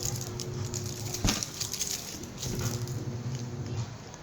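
Handling noises from opening a toy surprise egg: scattered light clicks and crinkling, with one sharper click about a second in, over a steady low hum.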